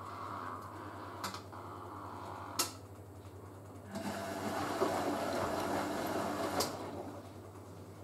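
Hoover A3060 Electronic 1100 washing machine on its wash tumble: a steady hum with a couple of sharp clicks, then the drum turning for about three seconds with the wet laundry sloshing in the water.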